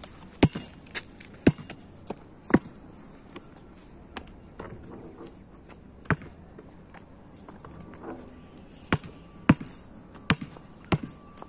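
A basketball being dribbled on a hard outdoor court: sharp, irregular bounces, a few about half a second apart near the start, then more scattered ones with a lull in the middle.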